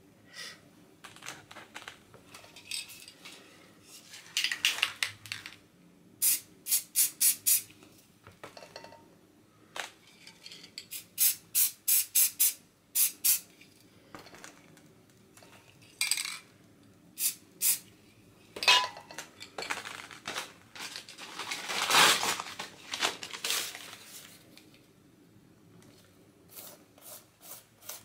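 Spray-paint can shaken so its mixing ball clacks in quick runs, alternating with short hisses of paint spraying. The longest spray, about a second and a half, comes about three quarters of the way through. Paper rustles and handling noises fill the gaps.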